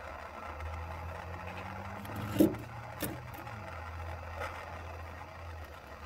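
MAP gas torch burning steadily with a low roar, heating a copper ring lug held in vice grips. There are two short knocks a little after two and three seconds in.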